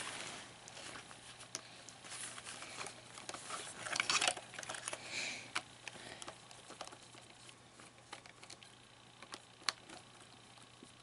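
Plastic animatronic parts being handled: scattered light clicks and rustling, busiest around four seconds in, with one sharper click near the end.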